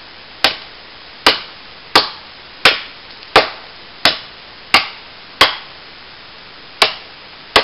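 Ontario 24-inch military machete chopping into a fallen log: about ten sharp strikes at a steady pace of a little over one a second, with a short pause near the end.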